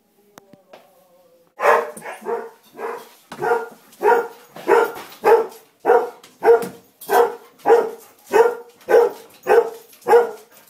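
A dog barking over and over at a steady pace, about three barks every two seconds, starting about a second and a half in.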